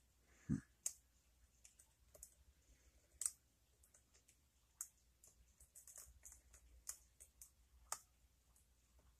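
Faint, irregular metallic clicks and ticks of a lock pick and tension wrench working the pins of a pin-tumbler challenge lock, with a few sharper clicks among quieter ticking. A dull thump about half a second in.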